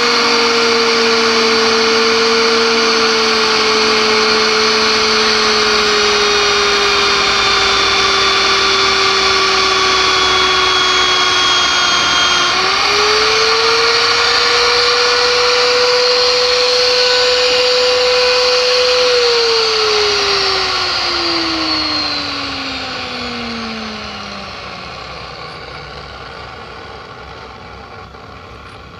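Electric pipe threading machine running with a steady whine whose pitch slowly sinks, then picks back up about halfway through. About two-thirds of the way in it is switched off and winds down, the whine falling in pitch as the sound fades.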